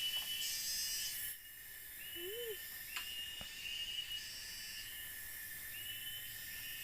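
Forest insects calling: a steady high-pitched hiss with a short rising chirp repeating every second or two. A faint low vocal sound and a single click come about halfway through.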